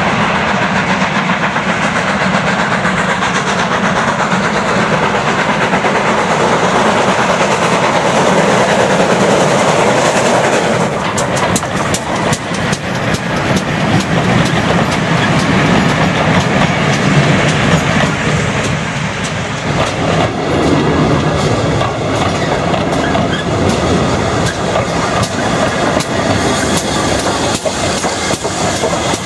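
A double-headed steam train hauled by two 2-6-0 moguls, ex-Southern U class 31806 and ex-GWR 4300 class 5322, comes up and passes close by. For the first ten seconds there is a dense, loud rush of working locomotives. Then the coach wheels go by, clicking over the rail joints, and from about two-thirds of the way through a steady ringing tone sounds over the clicks.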